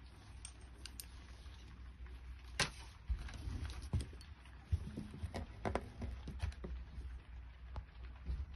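Scattered clicks and taps of small plastic and metal RC car parts and hand tools being handled during assembly. The sharpest click comes about two and a half seconds in, with a busier run of taps in the middle, over a low steady hum.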